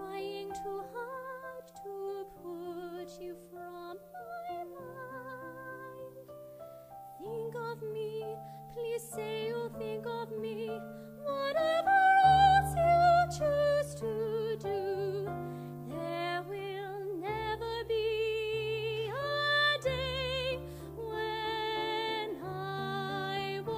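A woman singing a slow song in a classical, operatic style with a strong vibrato, over sustained instrumental accompaniment. Her voice swells to its loudest about halfway through.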